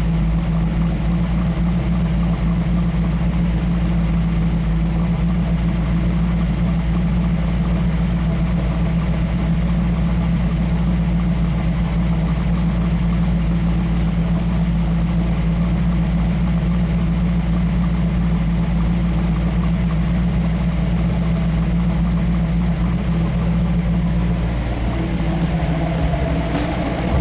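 1968 Pontiac Firebird's freshly built Pontiac V8, a 428 stroked to 462 with a 455 HO top end, idling steadily.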